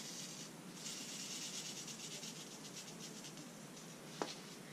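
Soft rustling and rubbing of a paper note and the salt gun's plastic salt reservoir being handled, with a single light click near the end.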